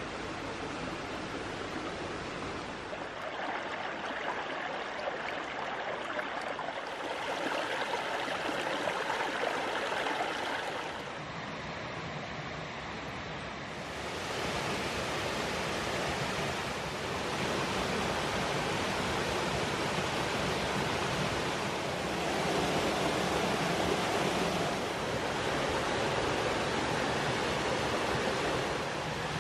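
Creek water running over rocks and a waterfall pouring down a rock face: a steady rush of water that jumps in loudness and brightness every few seconds as the sound cuts between spots along the creek.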